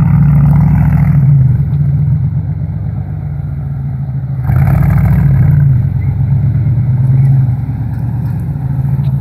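Fuel-injected 5.7-litre V8 of a Vitara-bodied off-roader on a Mercedes G chassis, working under load through mud. It is revved hard twice, at the start and again about four and a half seconds in, and eases off near the end.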